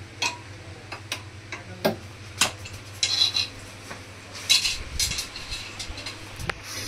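Pots, pans and metal utensils clinking and knocking as kitchen items are shifted: a string of separate sharp knocks, with two short bursts of clatter about three and four and a half seconds in.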